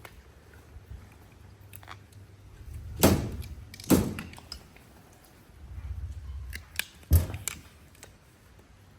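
Three heavy knocks, about 3, 4 and 7 seconds in, with fainter clicks and a low rumble between them.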